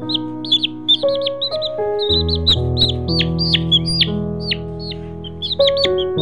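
Chicks peeping: short, high cheeps a few times a second, over background music of slow, held chords.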